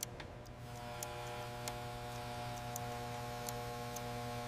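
Soft held chord of background music, a steady drone that sets in about half a second in. Faint light ticks like a watch ticking run over it.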